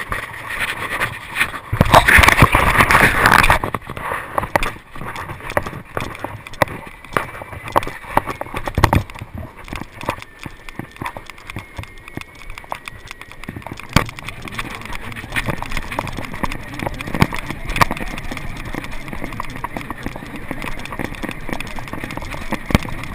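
Wind buffeting a camera mounted on a surf fishing rod, with a strong gust about two seconds in, and irregular knocks and rattles of the rod and its overhead reel as the angler fights a running shark.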